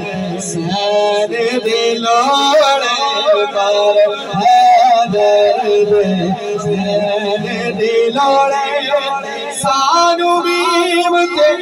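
A man singing a Punjabi naat solo into a microphone, drawing out long ornamented notes that glide and waver in pitch between the lines of verse.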